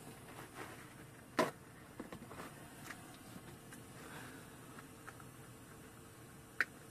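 Quiet background with a few scattered sharp clicks and knocks, the sharpest about a second and a half in and another near the end.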